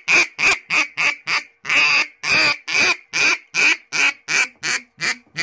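HOBO Prime Meat duck call blown in a run of about fourteen loud mallard-style quacks, about three a second, a couple drawn out near the middle and the last ones shorter and quicker.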